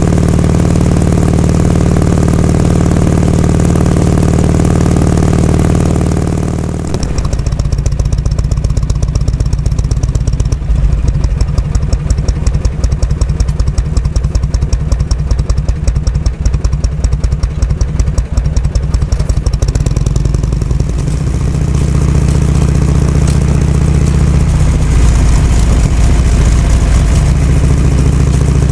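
Harley-Davidson Shovelhead FLH's V-twin engine running steadily, then about seven seconds in dropping to lower revs with a beat of separate firing pulses, and picking up to a steady run again about two-thirds of the way through.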